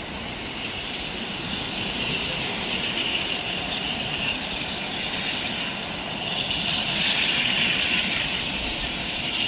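Jet engines of a large airliner, a steady rushing noise with a high whine that slowly swells, loudest about three quarters of the way through.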